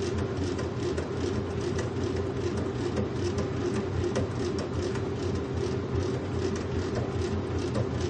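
Washing machine running: a steady mechanical hum and low rumble with faint irregular clicks on top.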